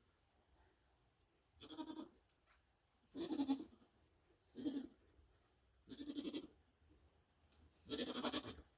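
Nigerian Dwarf goat bleating five times, short calls spaced a second or more apart.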